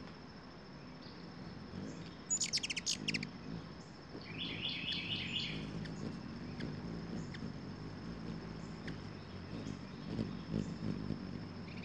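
Small birds chirping: a quick run of sharp, very high chips about two seconds in, then a run of repeated lower chirps a couple of seconds later, with a few faint single chips after. A low hum runs underneath.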